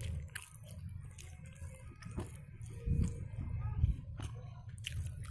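Metal spoon scraping and tapping against food in a paper takeaway box as rice and toppings are stirred, a few scattered clicks and soft knocks over a steady low hum.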